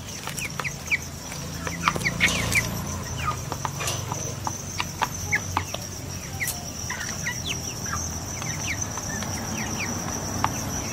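Chickens feeding at a plastic dish of pellets: many short, high peeping calls and soft clucks, with quick pecking clicks scattered through.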